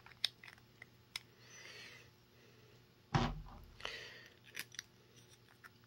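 Small clicks and taps of 3D-printed plastic parts being handled and fitted together, a gear pressed onto its hub, with a louder knock about three seconds in.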